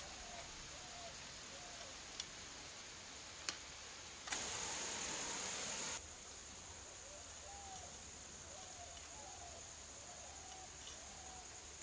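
Quiet outdoor ambience with faint, repeated short chirps of birds, a high steady insect drone that switches on abruptly for a couple of seconds in the middle, and a few sharp clicks from fish being cut against an upright blade.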